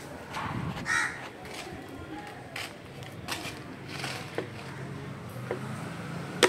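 A crow cawing, loudest about a second in, with a few shorter sounds after it. A sharp click near the end is the loudest moment.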